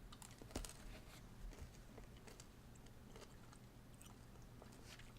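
Faint chewing of a Skittles candy: soft mouth clicks and small crunches, with one slightly louder click about half a second in.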